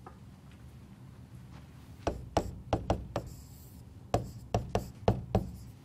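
A stylus tapping and knocking on a tablet screen while handwriting: about ten sharp taps in two quick groups, over a low steady hum.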